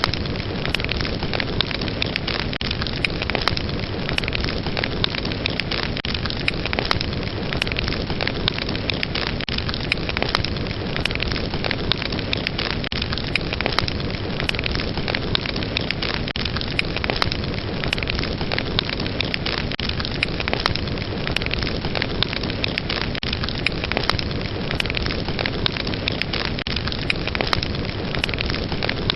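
Fireplace fire burning with crackling flames: a steady hiss full of many small pops and snaps.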